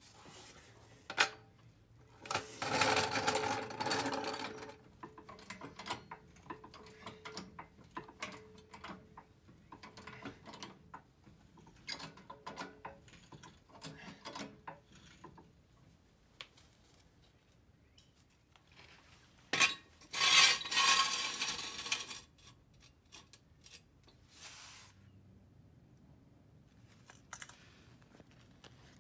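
A hydraulic floor jack being positioned and pumped on a concrete floor to raise a car, and steel jack stands set beneath it: irregular metal clicks and clanks, with two louder scraping bursts, one about three seconds in and one about twenty seconds in.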